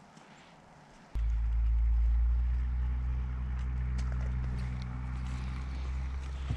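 An engine starts running abruptly about a second in: a loud, steady, low hum that holds without changing.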